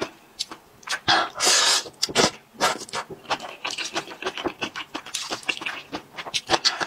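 Close-miked eating sounds of thick noodles in chilli sauce: long wet slurps about a second in and again around two seconds, then a run of quick, wet chewing smacks.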